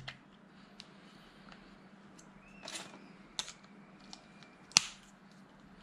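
Light plastic handling clicks and rustle as an Insta360 One R's 4K lens module is turned around and fitted back onto the camera core, ending in one sharp snap as it seats, near the end.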